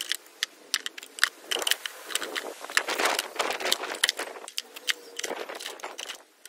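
Metal and wooden-handled hand tools clinking and knocking as they are put one by one into a wooden carpenter's toolbox. The clatter is irregular and busiest around the middle.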